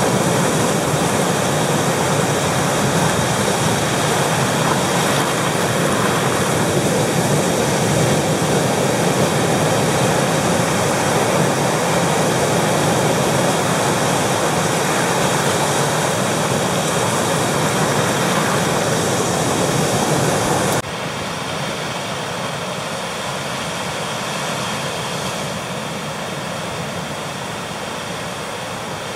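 Ocean surf breaking and foaming over shoreline rocks: a steady, loud rush of waves. About 21 s in it cuts suddenly to a quieter, thinner wash of waves among rocks.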